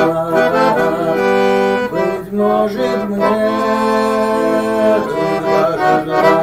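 Weltmeister chromatic button accordion playing an instrumental passage: a melody over held chords, with notes sustained for up to a second or two.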